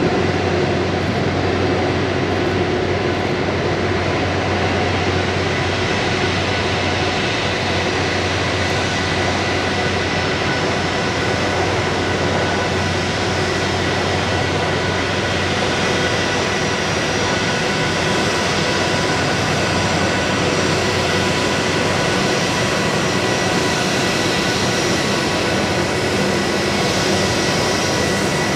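Airbus A330-300 airliner's jet engines running at low taxi power: a steady rushing noise with a whine held at several unchanging pitches.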